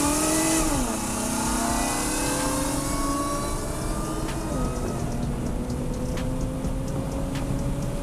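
Infiniti Q50 Red Sport's twin-turbo V6 pulling hard at full throttle, its pitch climbing steadily and dropping sharply at upshifts about a second in and again near five seconds in.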